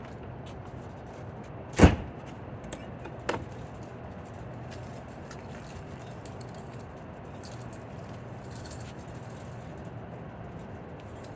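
Keys jangling, with one loud sharp knock about two seconds in and a lighter knock about a second and a half later, over a steady low hum.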